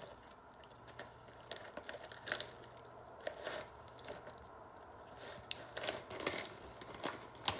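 A plastic snack wrapper crinkling and rustling in the hand in short, scattered bursts, with quiet chewing of puffed cookies.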